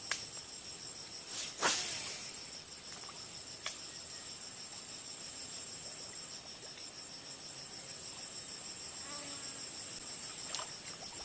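Insects, crickets by their sound, trilling steadily in a fast, even, high-pitched pulse. A few sharp clicks cut in, the loudest about a second and a half in.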